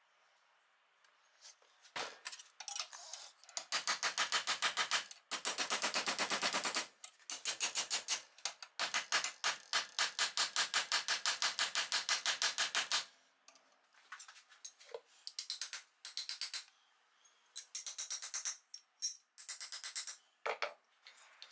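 Hammer tapping annealed copper sheet, bending and shaping it over a steel form into a sword collar: long runs of fast, even taps, then several shorter bursts of taps near the end.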